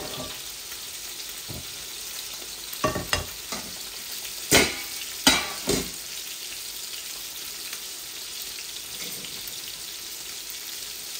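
Pieces of turmeric-coated rohu fish frying in hot oil in a pan, a steady sizzle. A few sharp knocks of cookware being handled break in around the middle, the loudest about four and a half and five and a half seconds in.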